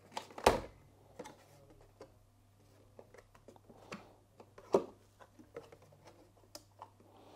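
Cardboard camera box being opened and handled by hand: scattered light taps, clicks and scrapes of the lid and inner packaging, with a louder knock about half a second in and another just before five seconds.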